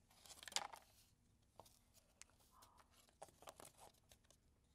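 Faint rustling and scattered light taps of flat paper puppets and cardboard scenery being handled, with a soft breath about half a second in.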